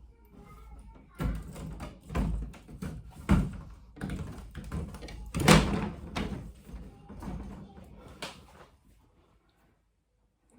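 Irregular knocks and thuds of a wooden door and its plexiglass panel being handled and worked on. The loudest knock comes about five and a half seconds in, and the knocking dies away near the end.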